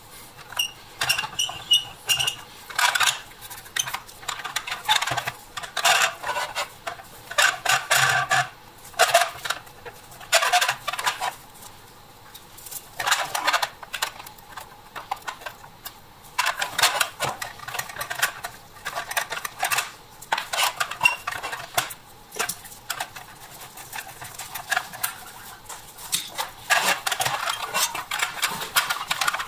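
Metal toy Matchbox Mack dump truck being taken apart with pliers: irregular metallic clicks, clinks and scrapes as the pliers grip the underside and the metal body and parts knock together and are handled.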